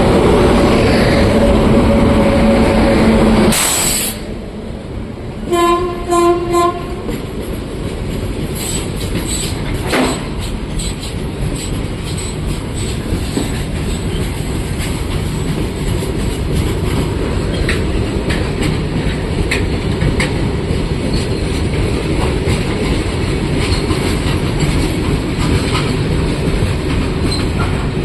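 A loud steady hum with a few held tones breaks off abruptly after about three and a half seconds. A train horn then sounds in short blasts about six seconds in. A train follows, rolling past with wheels clattering over the rail joints and a steady rumble.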